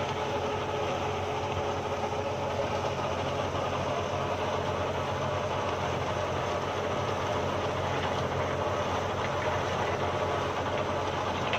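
New Holland 6510 tractor engine running steadily under load, pulling a Vikas super seeder whose rotor churns through crop stubble, with the seeder's mechanical rattle mixed into the engine sound.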